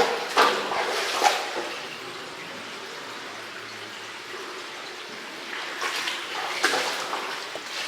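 Steady rushing of running water inside a cave. Clusters of short scuffing or splashing noises come in the first second or so and again about six seconds in.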